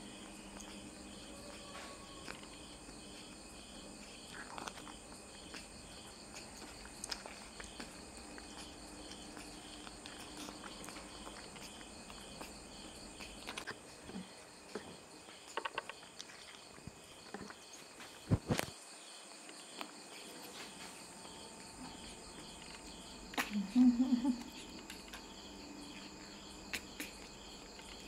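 Insects chirping steadily in the background, a high pulsing trill, with a few faint clicks and one short louder sound about three quarters of the way through.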